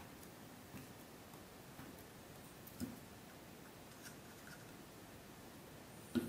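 Faint hand-tool work on leather on a cutting mat: a few soft clicks and a small knock, then a sharper knock near the end as a small plastic bottle is set down on the mat.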